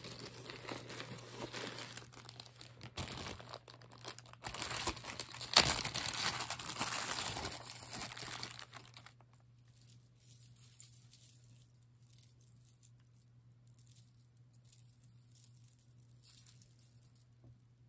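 Clear plastic zip-top bag crinkling and rustling as it is handled, with one sharp, louder crackle about five and a half seconds in. The handling stops about halfway through, leaving faint rustles over a low steady hum.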